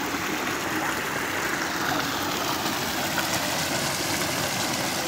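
Water spilling steadily over a low sandbag-and-stake dam across a canal, falling in a continuous rushing stream.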